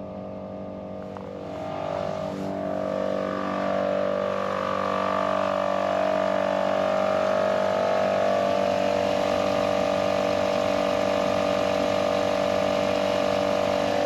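Morrflate TenSix 12-volt air compressor running steadily while inflating four tyres at once, heard from inside the truck cab with the truck's engine idling. The hum swells over the first few seconds, then holds steady.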